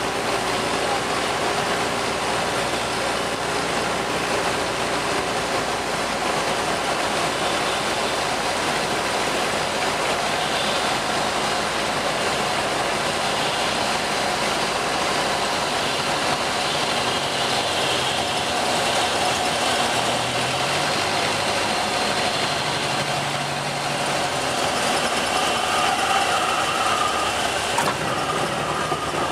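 Cessna light aircraft's engine and propeller heard inside the cabin: a steady, loud drone with the rush of air over the airframe mixed in.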